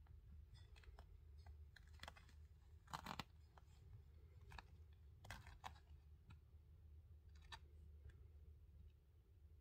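Faint, scattered crinkling and rustling of a disposable absorbent pad as newborn kittens squirm on it, over a low steady hum, with a slightly louder crinkle about three seconds in.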